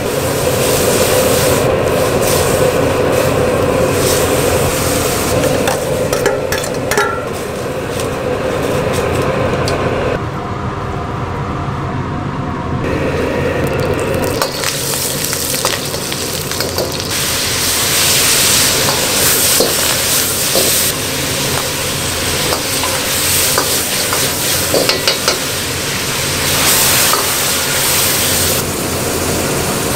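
Wok cooking over a high-output gas burner. First, water boils in a wok. Then, about halfway through, oil sizzles loudly in the wok while a metal ladle scrapes and clacks against it as shrimp and vegetables are stir-fried.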